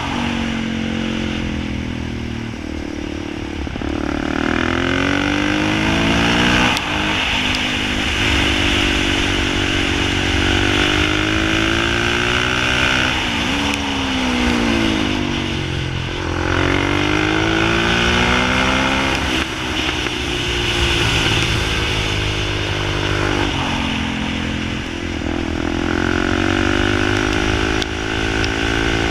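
Motorcycle engine on a track lap, revving up through the gears on the straights and dropping off each time it slows for a corner, several times over.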